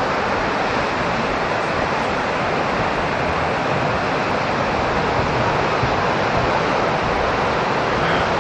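Sea surf washing in, a steady rushing noise without breaks.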